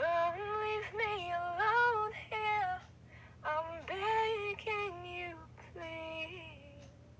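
A girl's high voice singing short held notes that step up and down, in three phrases with brief pauses between, the last a single held note.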